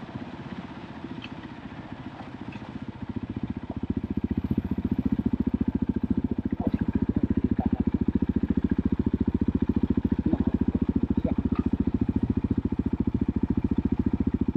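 KTM EXC-F 500's single-cylinder four-stroke engine running, growing louder about four seconds in and then holding a steady, even beat of firing pulses with no revving.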